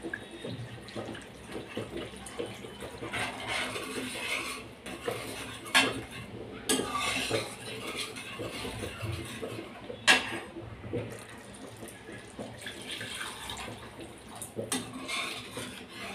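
Steel spoon scraping and knocking against a kadai while stirring water into a thick masala gravy, with wet stirring sounds. Two sharper knocks come about six and ten seconds in.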